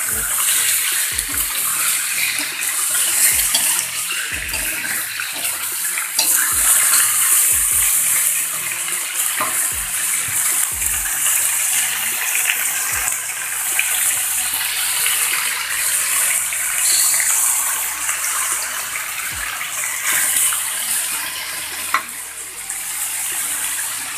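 Spice paste and sweet soy sauce sizzling loudly in hot oil as they are stir-fried in a pan, the hiss swelling and easing, with a few sharp clicks.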